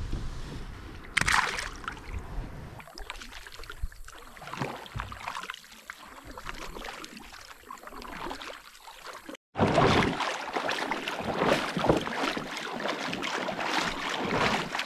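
Water splashing and sloshing around a kayak, with irregular paddle strokes. The sound is quieter at first, cuts out briefly about nine and a half seconds in, then returns louder.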